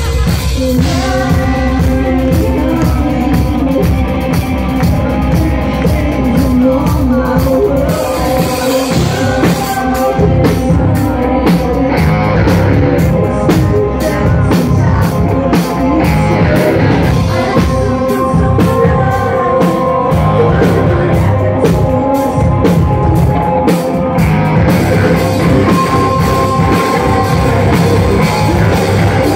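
Rock band playing live and loud, with distorted electric guitars, bass, a drum kit and singing; the drumming turns into a fast, steady beat about ten seconds in.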